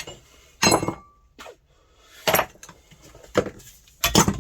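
Sharp metallic clinks and knocks from the steel parts of a split differential being handled and struck, about four separate hits with a brief ring after each.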